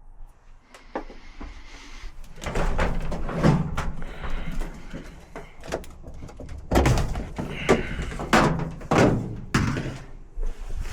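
A run of irregular clunks, knocks and scrapes of hard objects being handled, some loud and some faint, with no steady rhythm.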